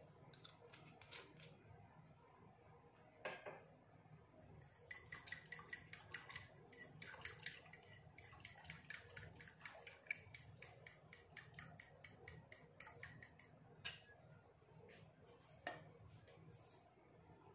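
Metal spoon stirring a wet pancake mixture in a ceramic bowl, faintly clinking against the bowl's side. A few scattered taps come first, then a quick run of light clinks, about five or six a second, through most of the middle, then a couple of single taps near the end.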